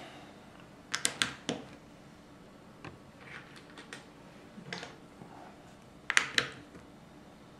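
Plastic Lego pieces clicking and tapping as they are handled and pressed onto a Lego baseplate. The clicks come in short clusters, with the loudest cluster about six seconds in as a plate is pushed down onto the studs.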